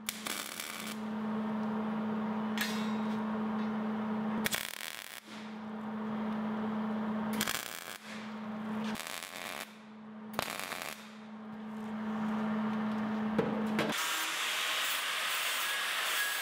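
Arc welding on square steel tubing: five welding runs of a few seconds each, each a steady buzz with crackle, separated by short pauses. About fourteen seconds in, an angle grinder starts grinding the welds with a loud, steady hiss.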